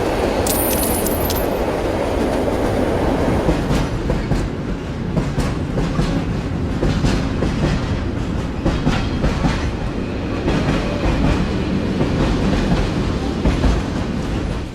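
A train running along the track with a steady rumble, its wheels clattering over the rail joints in irregular clicks. There is a brief high-pitched squeal about half a second in.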